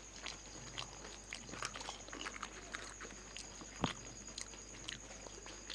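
Eating noises: crisp fuchka (pani puri) shells being bitten and chewed, a run of small crackles and wet mouth clicks, with one sharper crunch nearly four seconds in.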